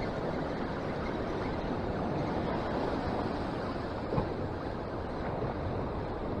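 Ocean surf washing against shoreline rocks, mixed with wind on the microphone: a steady rushing noise, with one brief knock about four seconds in.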